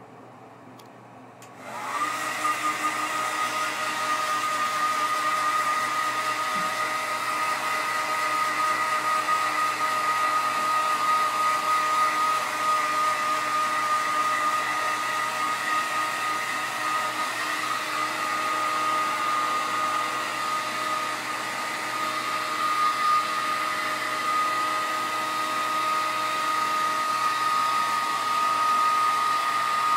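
Hair dryer switched on about two seconds in, then running steadily with a whining motor tone over the rush of air.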